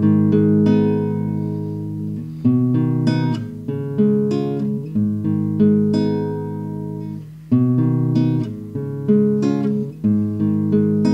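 Nylon-string classical guitar playing slow picked chords, a new chord struck about every two and a half seconds with single notes ringing between, heard through a budget AKAI ADM-25 dynamic microphone.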